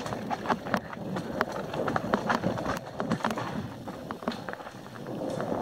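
Mountain bike rattling down a rocky dirt trail: tyres crunching over stones, with irregular knocks and clicks from the chain and frame on every bump, easing briefly about four seconds in.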